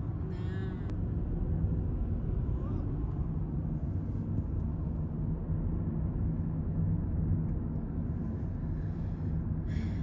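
Steady low rumble of a car driving along a road, heard from inside the cabin: engine and tyre noise.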